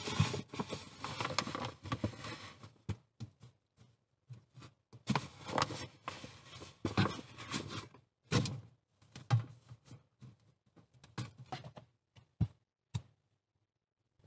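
Wet clay being scooped by gloved hands from a blue bucket and pressed onto a sheet-metal barrel stove and its flue pipe: irregular scrapes and rustles with dull knocks, in bursts with short pauses, stopping about a second before the end.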